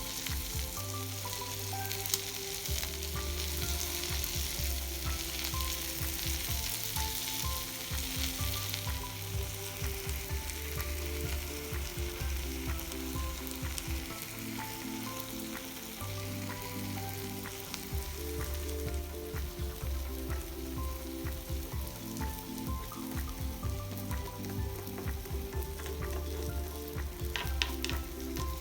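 Food sizzling as it fries in a pan, with a steady hiss that is strongest in the first third, over background music.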